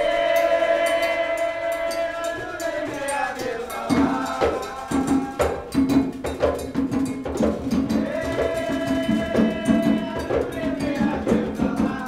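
Afro-Brazilian ritual music: a long sung note is held, then atabaque hand drums come in about four seconds in with a steady beat, and the singing comes back over the drums.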